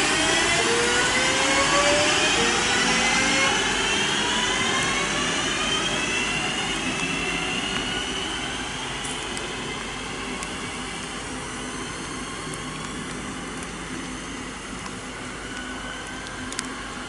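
Class 323 electric multiple unit's traction motors whining, several tones rising in pitch as the train accelerates away, fading over the second half. Rain hiss underneath.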